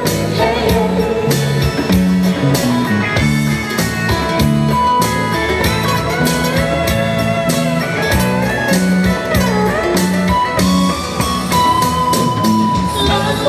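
A live band playing an instrumental passage: electric guitar holding long, sliding lead notes over strummed acoustic guitars, stepping low notes and hand-played djembe beats.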